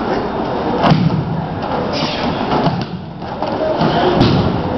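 Aikido ukemi: attackers being thrown and landing on a padded mat. Several dull thuds, the loudest about a second in, over a steady murmur of onlookers.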